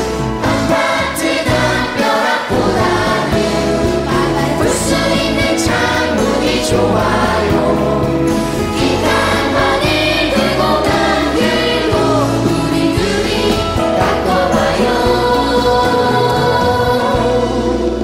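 Background music: a song with sung vocals over a full instrumental backing.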